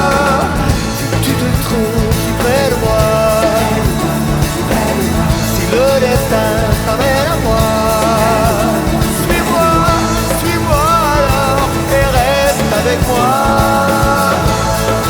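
Background song: a pop-rock track with a singing voice over a steady beat.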